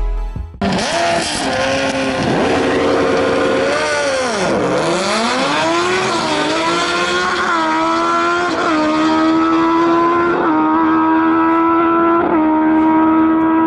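Drag-racing motorcycles held at high revs on the start line, then launching. The engine note drops and climbs again, then rises through about five quick upshifts as they run down the strip.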